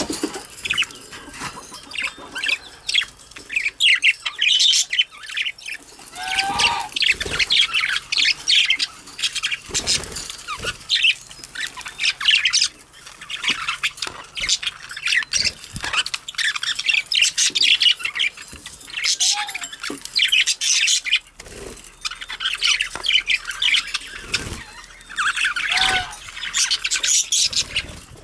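Budgerigars chattering continuously in fast, high chirps and warbles, with sharper squawks mixed in and a few short soft knocks.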